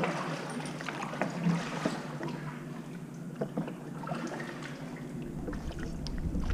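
Water splashing, dripping and lapping around kayaks being paddled, with many small scattered ticks. Wind starts buffeting the microphone near the end.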